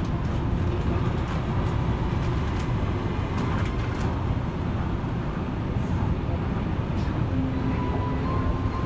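Yui Rail monorail car running along its elevated track, heard from inside the cabin: a steady low rumble and hum. A steady pitched tone joins about seven seconds in.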